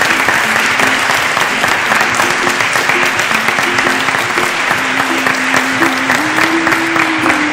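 Wedding guests applauding steadily. Music begins underneath, a melody of stepping notes that grows longer and clearer in the second half.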